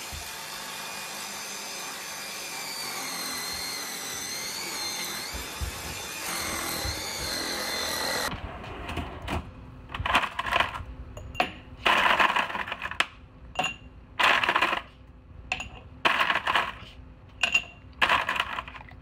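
A cordless stick vacuum cleaner runs with a steady rush and a wavering high motor whine, then stops suddenly about eight seconds in. After that a dog makes a series of short, breathy noisy bursts about once a second.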